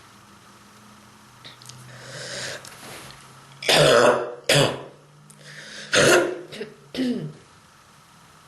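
A person coughing hard four times, in two pairs, after a drawn breath: harsh coughs from strong bronchitis.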